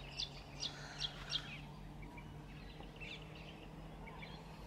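Wild birds calling outdoors: four quick, sharp descending chirps in the first second and a half, then fainter scattered chirps, over a faint steady low hum.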